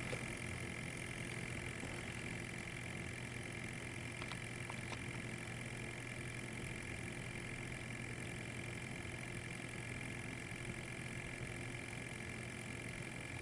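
Small sampling pump inside a Riken FI-21 gas analyzer running steadily, with a low hum and a faint high whine over it, drawing gas from the anesthesia vaporizer's output for measurement.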